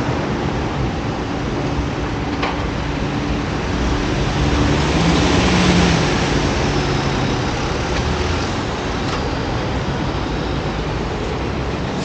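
Road traffic at a busy city intersection: a steady mix of vehicle engines and tyre noise. One vehicle swells louder as it passes about five to six seconds in.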